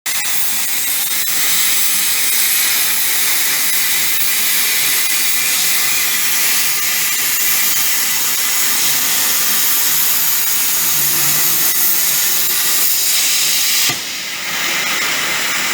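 CNC plasma cutting torch cutting steel plate: a loud, steady hiss. The hiss dips and changes about fourteen seconds in.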